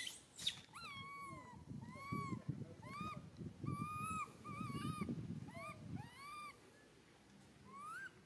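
Baby macaque crying: a string of about a dozen short, arched calls, each rising then falling in pitch, with a gap before a last rising call near the end. Leaves rustle under the calls through the middle. Two sharp clicks come at the very start.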